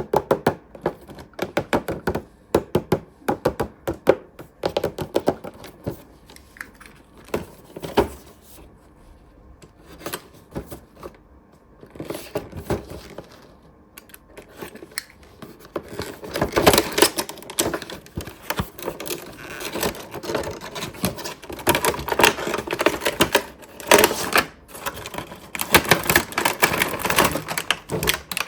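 Hard plastic toy pieces from a playset being handled, with a quick run of clicks and taps that grows denser and busier from about halfway.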